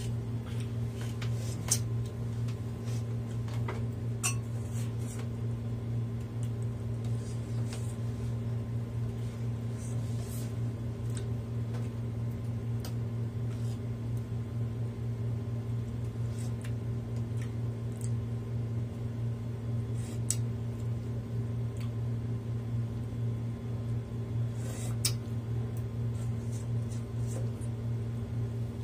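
Spoons clinking now and then against bowls and plates while soup is eaten, a few scattered clicks over a steady low hum.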